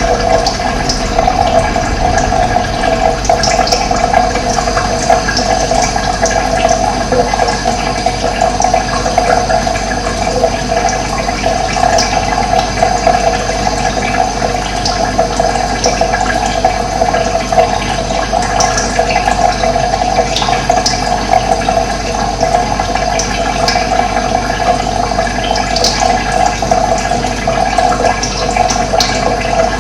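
Steady sound of running water, with faint short bird chirps scattered over it.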